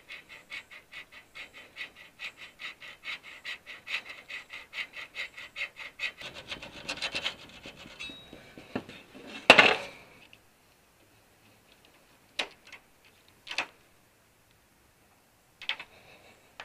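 Hacksaw blade held by hand sawing metal, in even back-and-forth strokes about three a second, which stop about eight seconds in. A loud knock follows, then a few light clicks.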